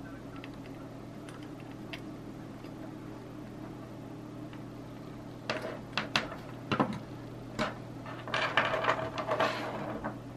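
Small clicks and rustles of jumper cables being handled and pushed onto the header pins of an Arduino sensor shield, starting about halfway through, over a steady low hum.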